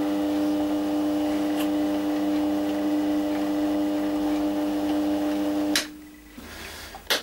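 GMD 400 mini metal lathe running at a steady pitch, humming through a thread-cutting pass. About six seconds in it stops sharply with a click, and a second click follows near the end.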